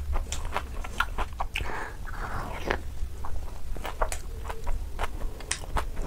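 Close-up chewing of a large mouthful of food with the mouth closed: irregular wet smacking clicks, over a steady low hum.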